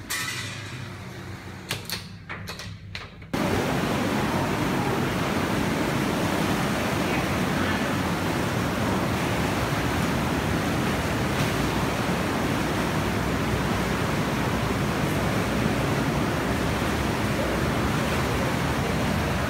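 Steady rushing noise of a whirlpool hot tub's jets churning the water. It sets in abruptly a few seconds in, after a quieter stretch with a few light knocks.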